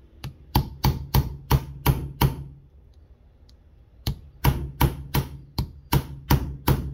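Hammer strikes on a punch, driving at the stuck trigger pin of a Remington Model 48 shotgun's trigger assembly: two runs of quick, sharp taps about three a second, with a pause of nearly two seconds between them. The pin is stuck and does not come out.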